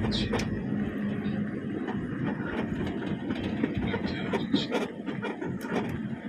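A vehicle driving along a road, heard from inside: steady engine and road rumble, with occasional sharp clicks and knocks, likely rattles.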